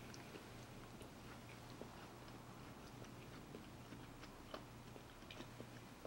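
Faint chewing and small scattered clicks of a person eating at the table, over a low steady hum.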